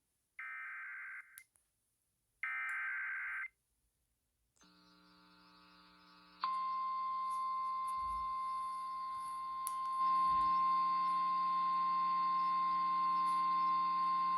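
Emergency Alert System warning on NOAA Weather Radio: two short bursts of screeching digital header data tones, then a low steady hum from the receiver, and about six seconds in the single steady high 1050 Hz warning alert tone starts and holds.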